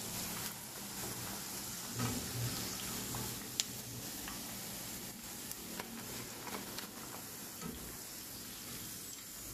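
Hot oil sizzling steadily as batter-coated chicken strips deep-fry in a pan, with a few sharp clicks and taps of the slotted spoon against the pan as browned pieces are lifted out, the clearest about three and a half seconds in.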